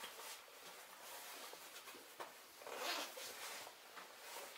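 Light rain falling, a soft steady patter with scattered small ticks, and a brief louder rustle about three seconds in.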